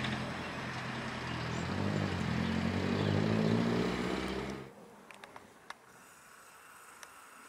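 City bus engine running close by, its pitch rising as it accelerates past, then stopping abruptly about two-thirds of the way through. After that there is only faint outdoor background with a few light clicks.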